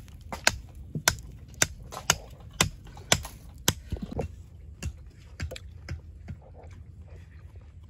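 Small fire of dry straw and twigs crackling, with sharp snaps about two a second that grow fainter and sparser after about four seconds.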